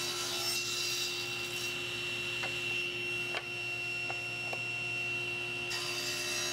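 SawStop cabinet table saw running with a steady hum and whine while a narrow hardwood strip is ripped, pushed through the blade with a push block. A few faint ticks come a little past the halfway point.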